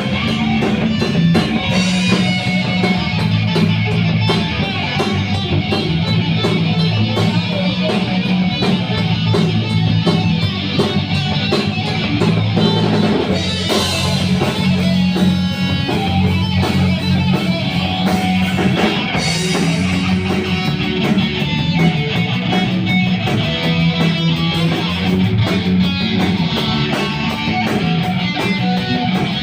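Rock music with electric guitar, bass and drum kit playing.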